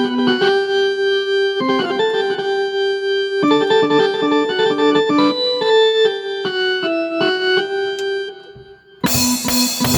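Keyboard playing a bright melodic line of single notes and short chords. The sound dips just after eight seconds, then the drum kit comes in loudly with a crash about nine seconds in.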